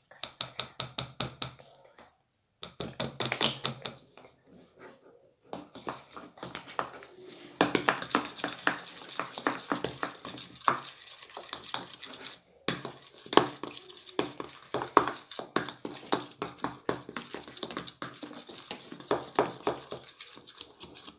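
Spoon stirring baking soda into water in a cup, tapping against the container: quick, even ticks for the first couple of seconds, then irregular taps and clicks with short pauses.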